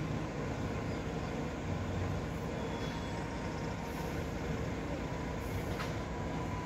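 Steady low rumble of an idling vehicle engine, even and unchanging, with faint steady tones above it.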